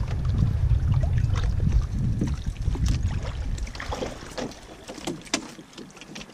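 Wind rumbling on the microphone over water lapping around a canoe. From about two seconds in come short splashes and knocks as a small landlocked salmon is reeled to the canoe and lifted out, and the wind rumble falls away near the end.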